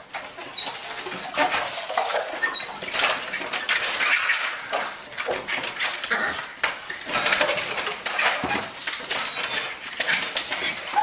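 Metal mail-slot flap clattering and rattling over and over as small dogs jump at the door and grab the mail, with repeated knocks and scrabbling against the door.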